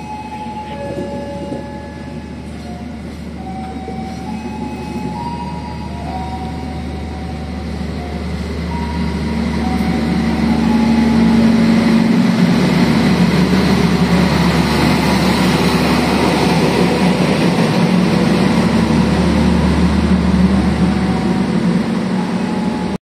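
Diesel locomotive's engine running as a train comes through the station, growing louder about ten seconds in and staying loud with rolling wheel and rail noise, then cutting off suddenly.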